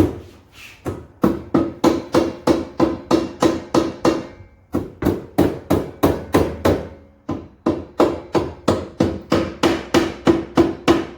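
Rubber mallet striking a metal strut tower brace in quick, even blows, about three or four a second, to knock it down onto strut tower studs where it would not seat smoothly. The blows come in three runs, with short pauses about half a second in, around four and a half seconds, and near seven seconds.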